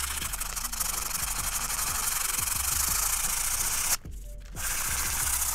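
Hand sanding of a dried spackle patch on painted drywall with fine-grit sandpaper wrapped round a kitchen sponge: a steady, rapid dry rubbing. It stops for about half a second about four seconds in, then starts again.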